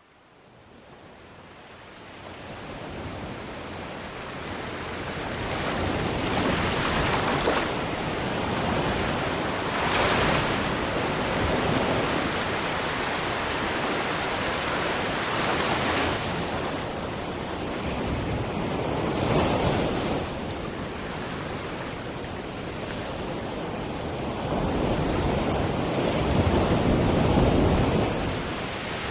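Sea waves washing and breaking, swelling in surges every few seconds; the sound fades in over the first couple of seconds.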